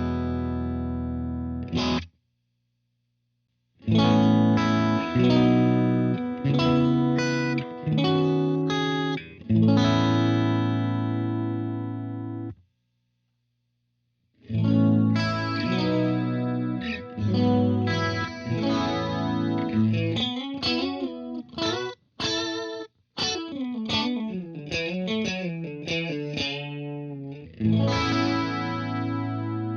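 Overdriven electric guitar played through a Blackstar Studio 10 6L6 valve combo amp: held chords in short phrases, broken twice by brief silences, then a single-note lead line with bends and vibrato in the second half.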